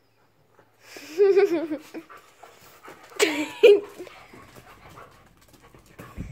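Two dogs play-fighting, giving wavering vocal cries: one about a second in and a louder one around three seconds, with softer scuffling sounds between. A short low thump comes near the end.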